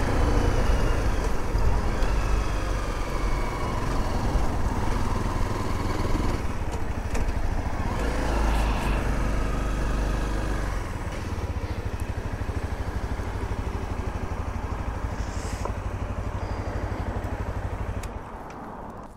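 Honda CRF250L single-cylinder motorcycle engine running with wind rush on a helmet-mounted microphone, its note falling as the bike slows. It settles into a steady, evenly pulsing low run as the bike rolls slowly and stops, then cuts off near the end.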